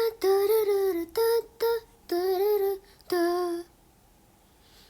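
A high voice singing a short wordless tune: several held, slightly wavering notes separated by brief breaks, stopping about three and a half seconds in and leaving near silence.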